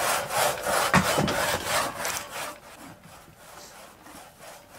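A long hand saw worked back and forth by two men, cutting through a log in quick rasping strokes. There is a sharp knock about a second in, and the sawing fades after about two and a half seconds.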